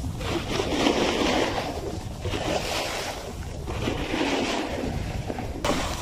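Snowboard sliding and scraping over snow, with wind rushing over the microphone; the scrape swells and fades every second or two.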